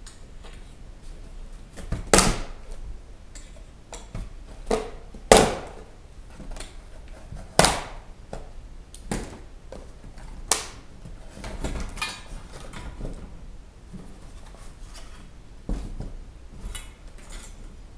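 Small cardboard parts boxes being handled and knocked down onto a bench: irregular sharp knocks and clacks, a few of them loud, with some rustling of cardboard and plastic partway through.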